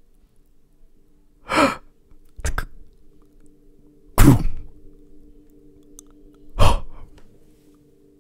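A person breathing sharply close to the microphone: four short breaths or sighs, the third the loudest, over faint steady background music.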